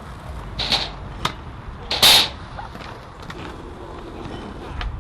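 Skateboard rolling on concrete: a low wheel rumble with a few sharp clacks, and a short, louder scrape about two seconds in.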